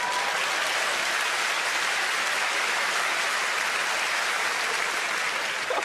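Large theatre audience laughing and applauding after a punchline, a steady dense wash of clapping and laughter that dies away near the end.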